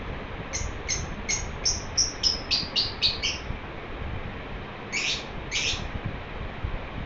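Pet lovebird chirping: a quick run of about nine short, high chirps, then two longer, harsher calls a couple of seconds later.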